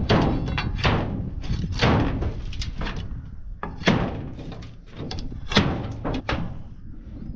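Hammer knocking and prying at rotted wooden roof framing and the rusted sheet-metal roofing around a hole: a run of irregular thuds and knocks, heavier in the first few seconds.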